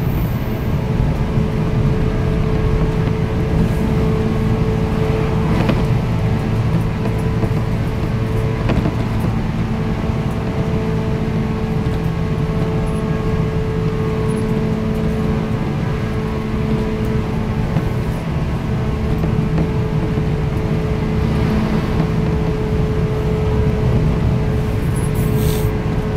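JR 185 series electric train running at a steady speed, heard inside the passenger car: its MT54 traction motors hum a steady tone over the rumble of the wheels on the rails.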